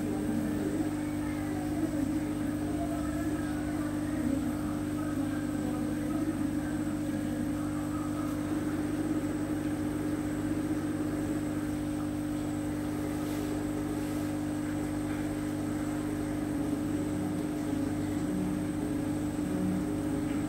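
Aquarium pump humming steadily, a low, even electric hum with a few fixed tones.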